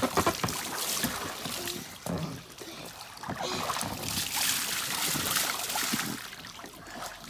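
Water splashing and sloshing in an inflatable paddling pool as children move through it and one climbs out, dripping, with sharper splashes near the start.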